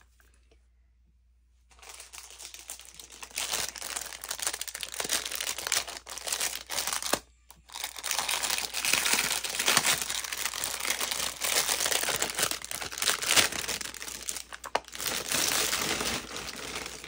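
Clear plastic packaging bag crinkling and rustling as it is worked open by hand. The crinkling starts about two seconds in and keeps going densely, with a short break about halfway through.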